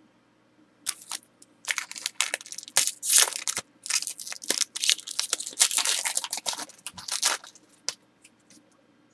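A trading card pack's wrapper being torn open and crinkled by hand: a dense run of crackling, ripping noises starting about a second in and lasting about six seconds.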